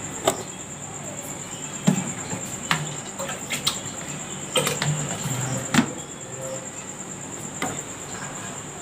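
Metal kitchen utensils and a spatula clicking and knocking against a kadai on a gas stove, about seven sharp knocks a second or so apart, over a steady hiss.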